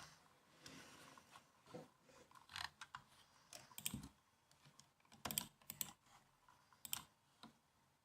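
Laptop keyboard being typed on: soft, irregular key clicks in short runs, with a few louder taps.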